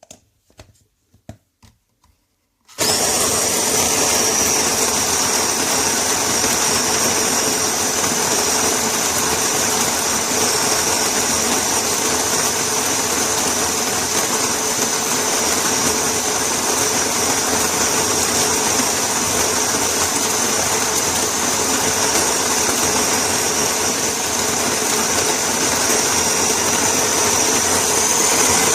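A few light clicks, then about three seconds in an electric coffee grinder with a stainless-steel conical burr, the BEEM Grind-Intense, switches on and runs steadily with a high whine.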